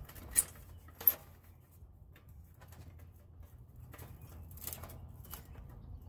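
Small metal clicks and taps from fitting a slotted retainer piece onto a gas grill's valve manifold: two sharp clicks under a second apart near the start, then a few fainter taps later on, over a low steady hum.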